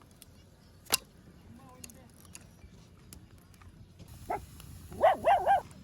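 A single sharp crack about a second in, then near the end one short pitched call followed by three more in quick succession.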